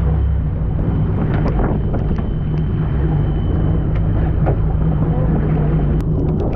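Fishing boat's engine running steadily, with wind buffeting the microphone and a few short knocks.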